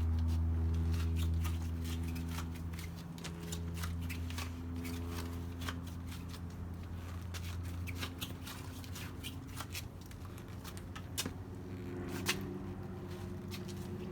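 Electrical cable being pulled and handled: irregular rustling and clicking of the wire and hands, over a steady low hum that weakens about halfway through.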